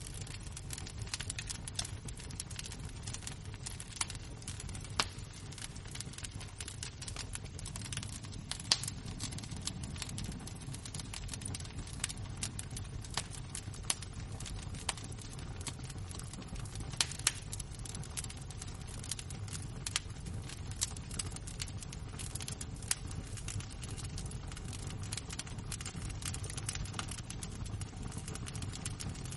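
Burning embers crackling and popping: irregular sharp pops, a few louder than the rest, over a low steady rumble.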